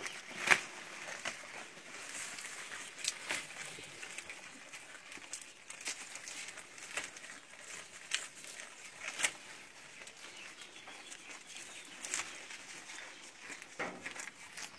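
Goat tearing off and chewing grass: short, crisp crunching and ripping sounds about once a second, the loudest just after the start.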